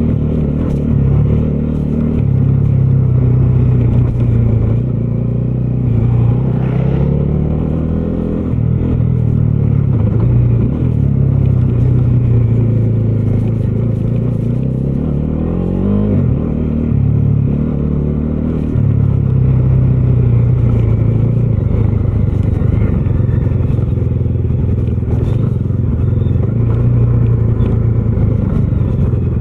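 Bajaj Dominar 250's single-cylinder engine running under way while being ridden. Its note rises and falls with the throttle and gear changes, with a quick climb and drop in pitch at about the midpoint.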